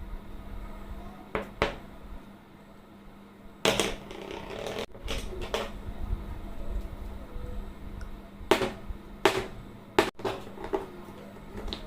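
Silicone pop-it fidget toy bubbles being pressed, making about ten sharp pops at irregular intervals, with a longer rustle about four seconds in.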